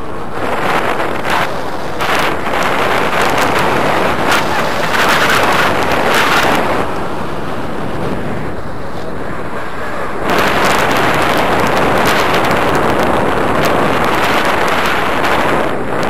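Wind rushing and buffeting over the microphone of a camera carried on a tandem paraglider in flight. It is a loud, rough rush that swells in gusts, strongest from about half a second to seven seconds in and again from about ten seconds in.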